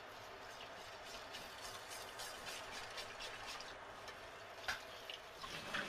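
Wire whisk stirring a thick milk-based sauce in a stainless steel saucepan: a faint steady swishing with light ticks of the wires against the pot, and a slightly louder click near the end.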